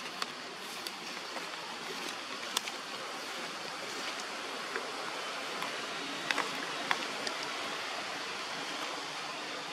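Steady outdoor background hiss with a handful of sharp clicks and snaps scattered through it, a few clustered just past the middle.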